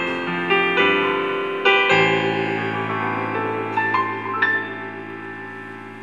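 Yamaha P-120 digital piano played in its piano voice: a few slow chords, a couple of higher notes near the middle, then a final chord left to ring and fade away.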